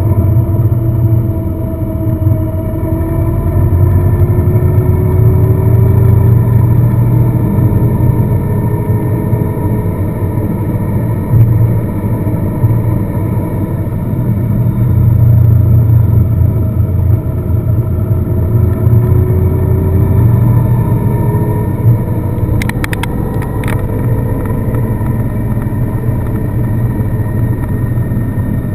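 A car driving, its engine and road noise a steady low rumble, the engine note slowly rising and falling with the road. A few faint clicks come about three quarters of the way through.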